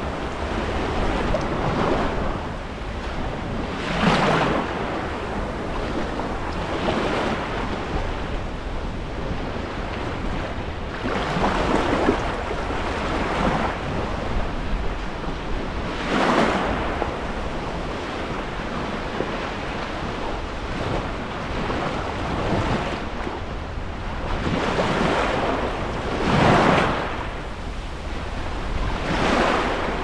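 Black Sea surf: small waves breaking and washing up a sandy shore, swelling into a rush of foam every few seconds, over a steady low rumble of wind on the microphone.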